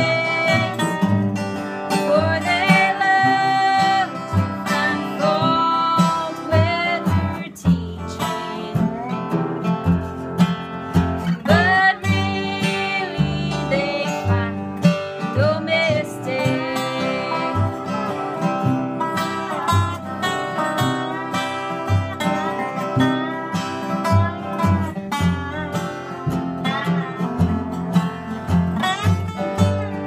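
Bluegrass band playing: acoustic guitar, upright bass plucking a steady beat, and a dobro whose steel-bar notes slide up and down in pitch. A woman is singing at the start.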